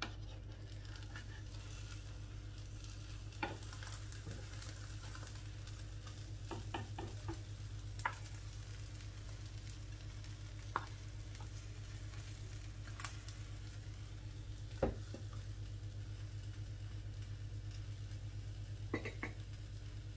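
An egg omelette frying gently in a small non-stick pan while a wooden spatula scrapes under it to fold it, knocking sharply against the pan a handful of times. A steady low hum runs underneath.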